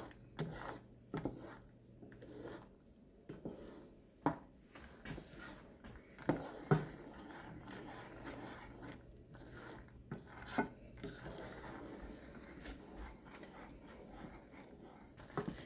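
Wooden spatula stirring peanuts through cooking sugar syrup in a saucepan: quiet scraping against the pan, with scattered single knocks of the spatula on the pot.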